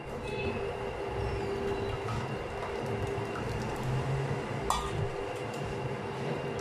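A steel cup clinks and scrapes against a steel tray as thick milk is stirred, with one sharp clink a little before the five-second mark. Under it runs a steady mechanical hum.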